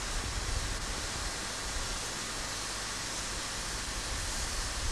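Steady rushing noise of a moving passenger train heard out of an open carriage window: wind on the microphone over the low rumble of the train running along the track.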